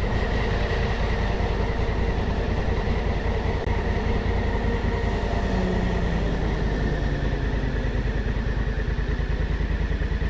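Adventure motorcycle's engine running steadily while riding at road speed.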